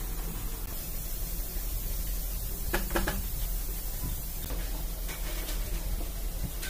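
Two light knocks about three seconds in, close together, with a few fainter ticks, as a metal engine front cover is handled on a workbench. A steady low hum runs underneath.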